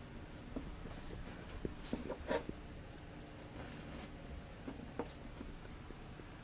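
Faint scratching and soft clicks of a small hand tool poking and cutting vent holes into Delft clay casting sand, with the clicks busiest around two seconds in and one more near five seconds.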